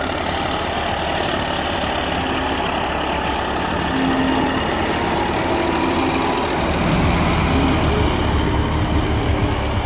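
John Deere tractor's diesel engine running steadily under load while pulling a Lemken reversible plough through the soil. The low rumble grows heavier about seven seconds in.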